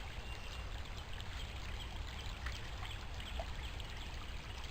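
Creek water trickling and flowing steadily, with a low rumble underneath and a few faint short bird chirps.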